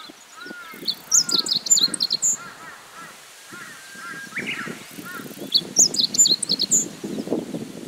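Meadow bunting singing: two short, fast, jumbled phrases of high notes, about four seconds apart.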